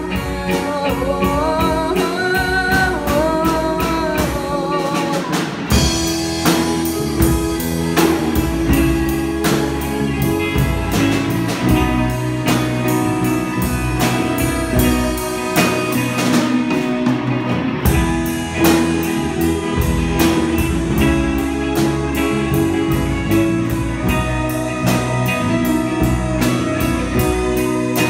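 Live rock band playing a slow rock ballad on electric guitars, bass, drum kit and keyboard, loud and steady. A melody line bends and wavers in pitch over the first few seconds, and the cymbals drop out briefly just past the middle.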